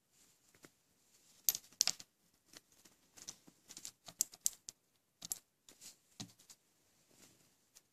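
Small glass stink-bomb ampoules clicking against each other and tapping on the tabletop as they are handled and set down: a scatter of sharp light clicks, the loudest about one and a half to two seconds in.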